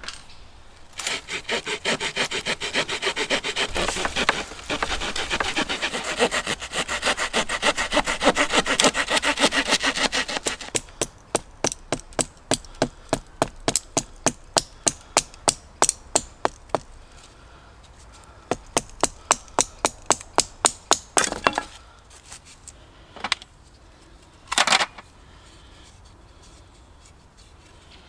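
Hand saw cutting through a wooden branch: fast, dense strokes for several seconds, then slower separate strokes about two a second, stopping after about twenty seconds. A few single knocks of wood follow.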